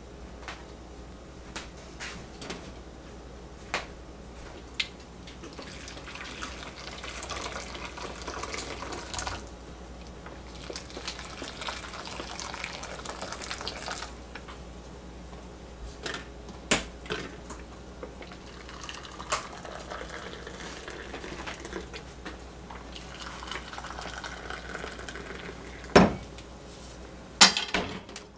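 Water poured from a kettle into cups of instant coffee mix, in two long pours, with clinks and knocks of cups and metal bowls on a stainless-steel counter. Two sharp, loud knocks come near the end.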